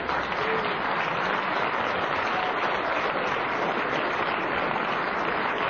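Studio audience applauding, a steady even clapping.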